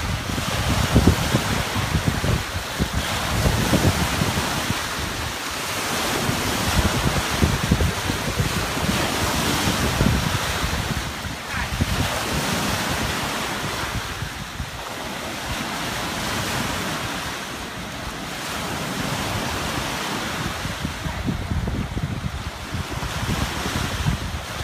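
Small lake waves breaking and washing against a rocky shore, with wind buffeting the microphone in uneven gusts.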